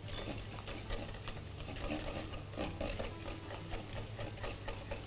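A kitchen utensil mixing a thick sauce in a bowl: quick, irregular clicks and scrapes against the bowl, several a second.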